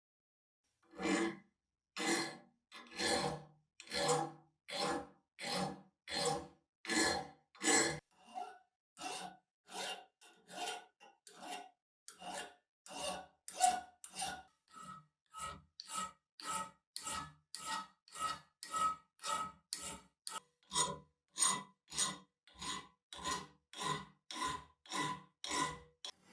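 A hand file rasping back and forth on the steel of a pipe wrench in steady, regular strokes, starting about a second in and quickening to nearly two strokes a second. From about halfway through, each stroke carries a faint ringing note.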